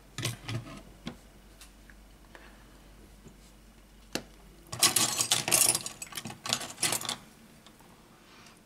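Smartphone display modules handled and set down on a silicone repair mat: a few light clicks, then, about five seconds in, some two seconds of dense clattering and scraping as the parts are moved about.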